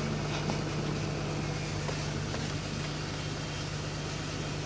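Steady low mechanical hum with an even drone, like an idling engine or air-conditioning unit running.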